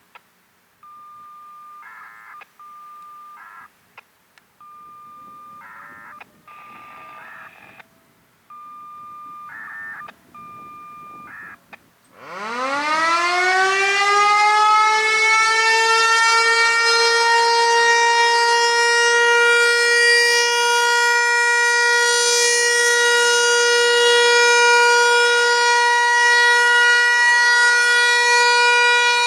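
A Federal Signal Equinox outdoor warning siren with an 8-port chopper winds up about twelve seconds in, rising in pitch, then holds a loud steady tone: the start of its one-minute Alert signal in a scheduled siren test. Before it there is a run of quieter, short electronic beeps.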